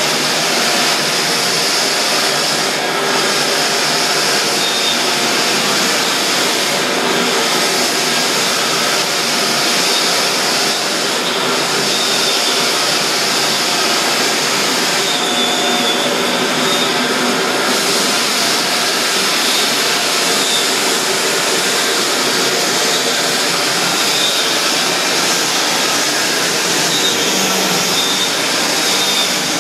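Walk-behind drum floor sander running steadily under load, grinding the old finish off a hardwood floor down to bare wood. Near the end a floor edger takes over.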